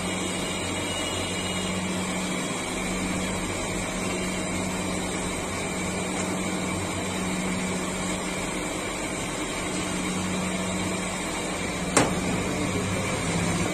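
A steady machine-like drone with a low hum underneath. A single sharp knock comes about twelve seconds in.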